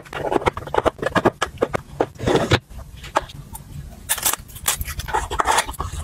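Small cardboard boxes and their packaging being handled by hand: a quick run of taps, scrapes and rustles as boxes are set into a plastic storage bin and one is opened.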